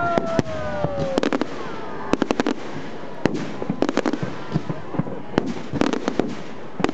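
Firecrackers going off in quick, irregular cracks, often several close together, over steady background noise. A falling, drawn-out tone sounds in the first second.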